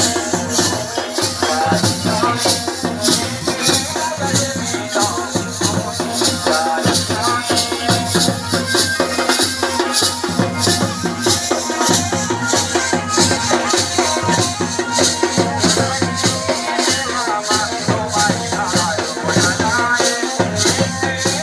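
Pahari folk music for a tandi song, with a fast, steady beat of crisp high strokes under a melody.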